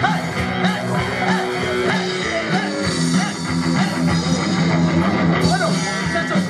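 Live rock band playing loudly: electric guitars over a drum kit, with no break.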